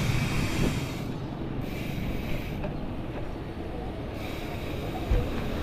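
Steady wind rush on the microphone and tyre rumble from a mountain bike rolling along a concrete street.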